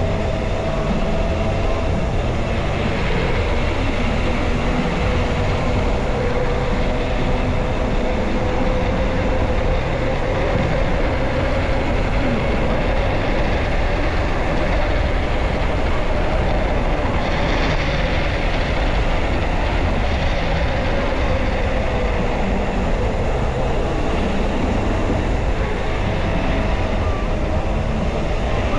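Steady rumbling wind and road noise of a ride in motion, with a faint tone that drifts slowly up and down in pitch.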